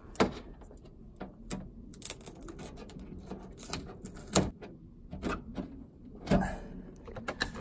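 Scattered light knocks, clicks and rustles of hands working along the edge of a Land Rover Defender's inner roof skin, fitting foam pads under the loose panel. The sharpest knocks come about four and a half and six and a half seconds in.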